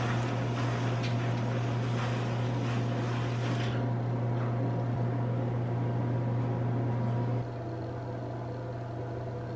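A small electric motor hums steadily with a hiss. The hiss thins about four seconds in, and the hum steps down in level about seven and a half seconds in.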